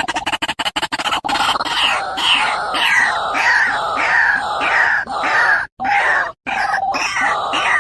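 A bird calling over and over in harsh, downward-sliding cries, about two a second, broken by a few sudden short gaps.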